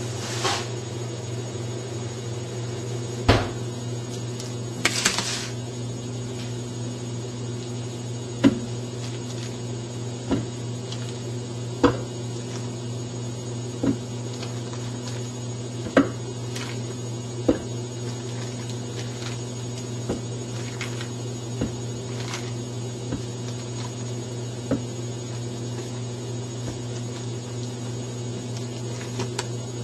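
Frozen banana slices dropped one at a time into the plastic bowl of a small food chopper, each landing as a short clack every second or two, over a steady low electrical hum.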